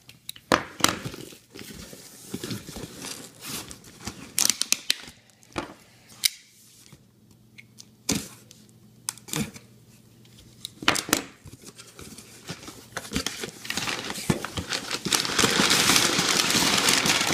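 Cardboard shipping box being opened with a folding knife: scattered sharp clicks and short tearing strokes of tape and cardboard, then steady loud crinkling and rustling of packing material over the last few seconds.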